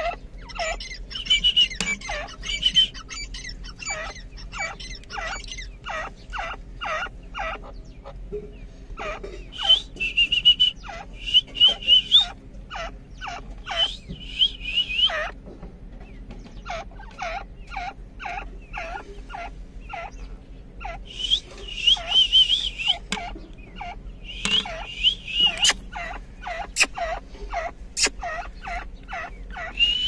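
Grey francolins calling: a steady series of short sharp notes, about two a second, broken several times by bouts of higher, rapid chattering trills.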